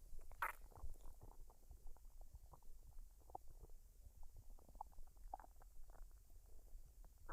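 A woman's stomach and intestines gurgling while digesting a full meal: faint, irregular small gurgles and pops, with a louder gurgle about half a second in.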